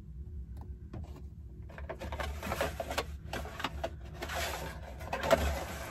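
Cardboard box and paper inserts rustling and scraping as they are handled and pulled out, in dense crackly rustles from about two seconds in, after a few faint taps.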